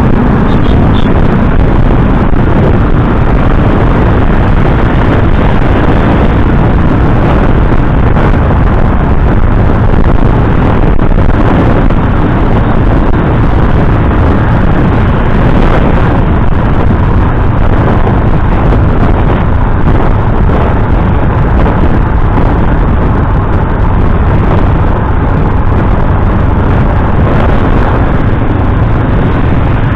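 Motorcycle riding at road speed: a steady, loud rush of wind over the microphone, with the engine running underneath.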